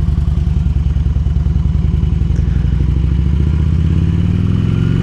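A V-twin motorcycle engine running steadily under way, with wind noise on the microphone. Over the last second or so the engine note climbs as the bike accelerates.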